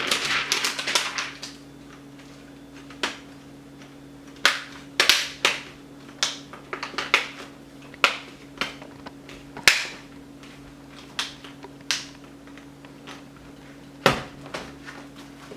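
Plastic laptop screen bezel being pressed back onto the lid, its clips snapping into place: a brief rustle, then a dozen or more sharp, irregular plastic clicks and snaps, over a faint steady hum.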